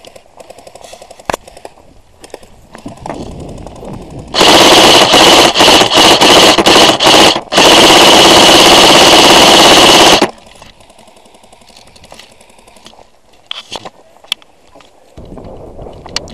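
Airsoft gun firing on full auto very close by: several short bursts, then one long burst of about three seconds, which stops suddenly.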